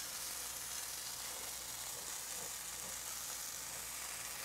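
A fig half and its sugar sizzling in a hot nonstick pan as the sugar caramelizes: a steady, soft hiss.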